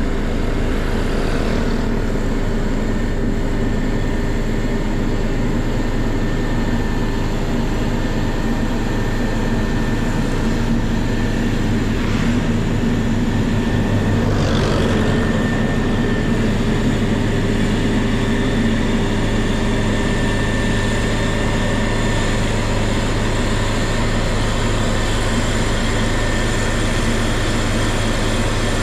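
Heavy diesel earthmoving machinery, such as a bulldozer or dump truck, running steadily with a constant engine drone and a thin steady whine above it.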